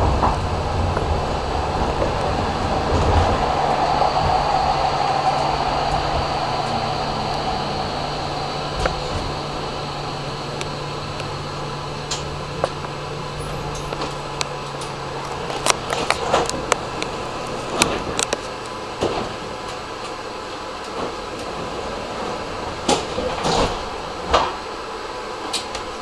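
Electric tram slowing to a stop: its running noise and motor hum fade over the first half. It then stands at the platform, where a series of sharp clicks and knocks sounds.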